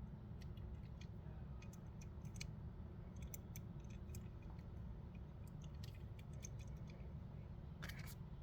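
Plastic packaging of a die-cast toy car being opened by hand: faint, scattered light clicks and snips, with a short cluster near the end, over a low steady hum.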